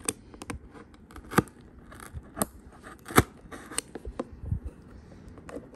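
Scissors blades being jabbed into and snipping a corrugated cardboard box to cut a hole: a string of sharp, irregular snaps and clicks.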